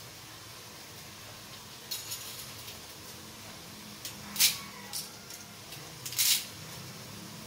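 Dry spaghetti noodles snapped by hand over an aluminium pot, with pieces dropping in. About five sharp, crisp cracks, the loudest a little before halfway and a longer crackle later, over a low steady hum.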